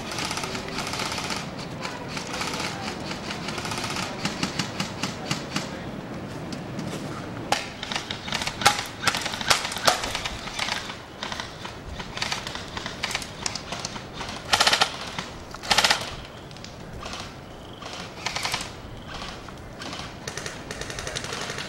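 Airsoft rifles firing in rapid bursts of clicks and snaps, with the loudest bursts in the middle stretch.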